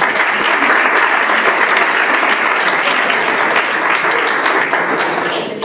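Audience applauding in a hall, a dense steady clapping that cuts off abruptly at the end.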